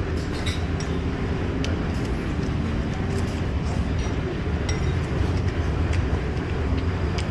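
A steady low rumble of background noise, with scattered light clicks of chopsticks and a metal spoon against a ceramic bowl.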